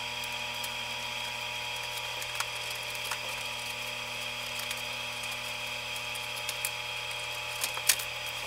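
A few light clicks of thin wooden cross pieces being set into the slots of a model bridge girder by hand, the sharpest near the end, over a steady hum with a high-pitched whine.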